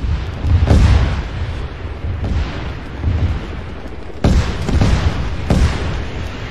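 A series of explosions from Iron Dome rocket interceptions: four sharp booms, each with a deep rolling rumble that fades over about a second, coming every one to two seconds.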